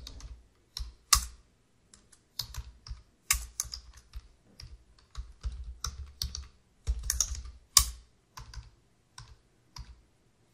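Typing on a computer keyboard: irregular runs of keystrokes with short pauses between them, and a few single louder strokes.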